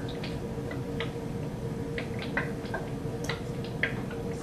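Chlorine and acetylene gas bubbling from a tube into a tall glass cylinder of water, making small irregular clicks and blips several times a second over a steady low hum.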